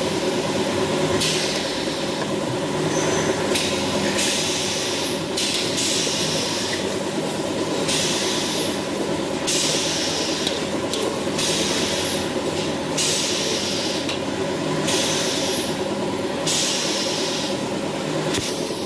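Spice paste frying in hot oil in a pan, a sizzling hiss that comes and goes in sharp-edged stretches over a steady low hum.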